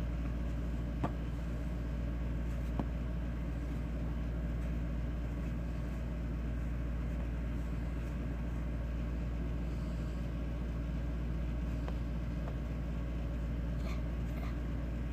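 A steady low background hum runs throughout, with a few faint soft clicks.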